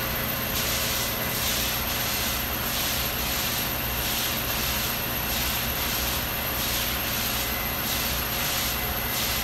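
Windshield wipers sweeping across a frosted windshield, a swish about twice a second that stops near the end, over a steady machine hum.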